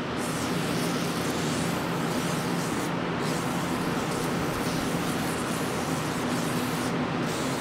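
WD-40 aerosol can spraying through its straw along the rim edge to lubricate the tire bead, a steady hiss with brief breaks about three seconds in and near the end.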